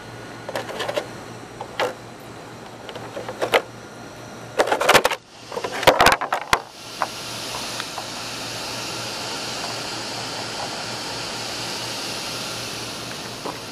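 A run of sharp knocks and clicks, then, about seven seconds in, a steady high whirring hiss begins: the small cooling fan on the Traxxas brushless ESC, running with the car powered up.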